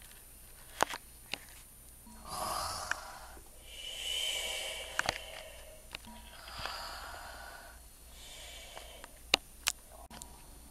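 Soft, breathy snoring-like breaths, one long breath every couple of seconds, as a person imitates a sleeper. A few sharp clicks cut in, the loudest about a second in and near the end.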